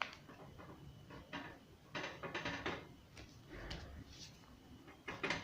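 A sheet of A4 paper being folded and creased by hand, crackling and rustling in short irregular bursts.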